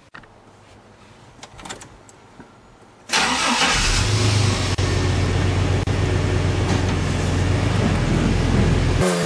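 The truck's 4.3L Vortec V6, fitted with a Gibson cat-back exhaust, starts about three seconds in, after a few faint clicks, and settles into a steady run, heard from inside the cab.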